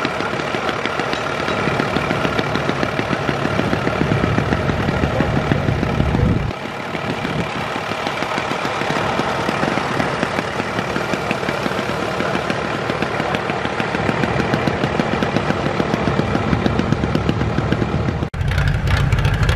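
Vintage tractor engines running at idle, a steady fast chugging beat. The engine sound changes abruptly about six seconds in and again near the end.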